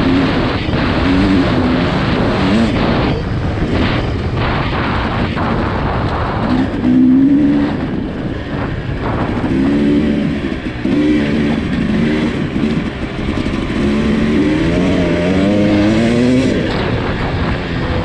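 Husqvarna TE300i's 300 cc two-stroke engine running hard under riding load in deep sand, its pitch rising and falling as the throttle is worked. It eases off around the middle and revs up again in rising sweeps near the end.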